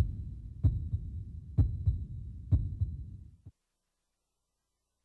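Heartbeat sound effect from a TV show's closing title card: three strong deep thumps about a second apart, each followed by a weaker beat, over a steady low drone. It cuts off suddenly about three and a half seconds in.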